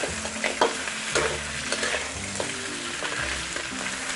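Crab pieces stir-frying in hot garlic oil in a steel wok: a steady sizzle, with a metal spatula scraping and clinking against the pan at irregular intervals as the crab is tossed.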